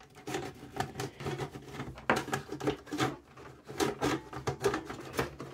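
Irregular clicks, taps and knocks of hands working at the metal lid and sides of a Sony TC-S1 cassette deck's case to get it off. The sharpest clicks come around two seconds in and again near four seconds.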